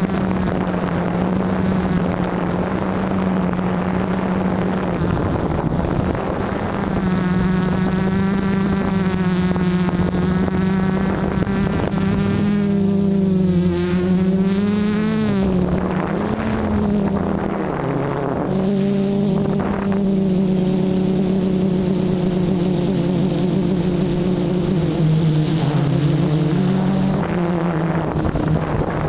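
Hobby King F330 quadcopter's brushless motors and propellers buzzing, heard from its onboard camera. The pitch holds steady, then wavers and bends up and down through the middle as the throttle changes. A thin high whine sits above it throughout.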